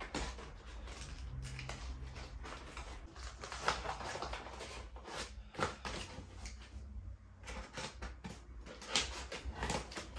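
A cardboard mailer package being handled and torn open: rustling, scraping and crackling, with a few sharper clicks and snaps. A steady low hum runs underneath.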